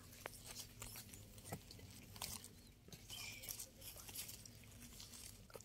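Near silence: faint, scattered crackles and rustles of dry leaf litter over a faint low hum.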